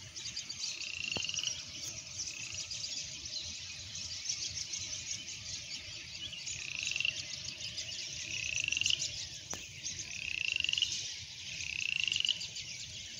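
A chorus of frogs calling in the rain. About half a dozen short rising trills stand out over a dense high chirring of many more frogs, with birds chirping among them.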